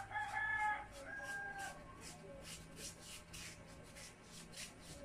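A rooster crowing, in two drawn-out phrases in the first two seconds. Under it, soft scratchy strokes about three times a second from a paintbrush working paint onto the table base.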